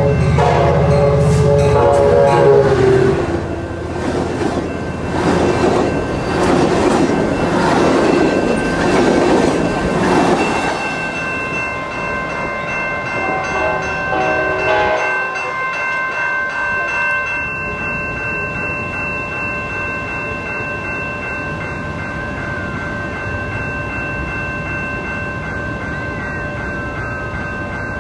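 Passenger locomotive horn sounding a chord for the first few seconds as the train comes in, then the train passing close with its wheels clattering over the rail joints until about ten seconds in. Through the second half, steady high ringing from grade crossing signals.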